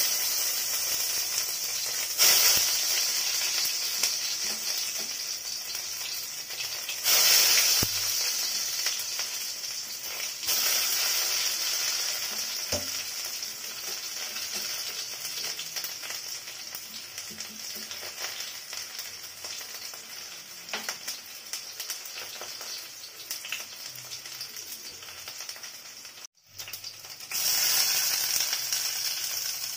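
Curry leaves and chopped onion frying in a stainless steel kadai: a steady high sizzle that jumps louder several times and breaks off briefly near the end.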